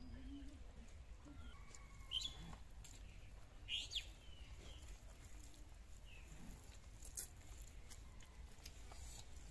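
Faint outdoor ambience with a few short bird chirps, the loudest about two and four seconds in, over a low steady rumble.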